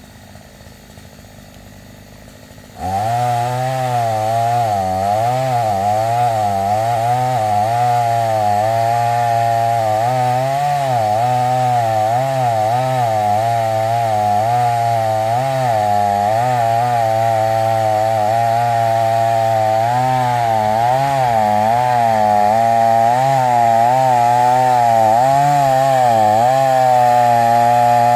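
Two-stroke chainsaw running at high revs and cutting wood, its pitch wavering up and down with the load. It comes in suddenly and loudly about three seconds in, after a much quieter start.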